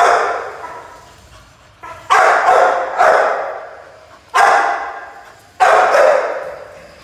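Pit bull barking loudly, four barks a second or so apart, each ringing on in the echo of a large empty concrete shed.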